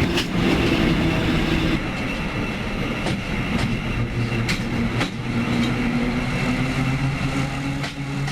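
Train running on steel rails: a steady rolling rumble and hum with scattered sharp clicks of the wheels over the track.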